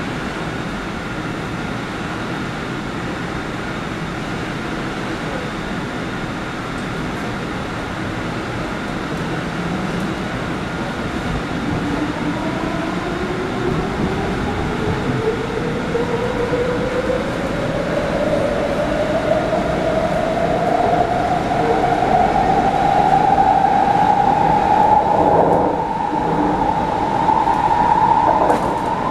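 MTR C-Train electric multiple unit pulling away from a station and accelerating. Its traction motors give a whine that climbs steadily in pitch and grows louder over the second half, over the car's running noise.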